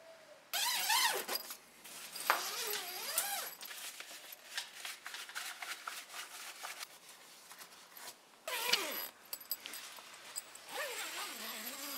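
A tent zipper is pulled and the canvas flaps rustle as the rooftop tent is opened. A few short wavering whine-like sounds come over it.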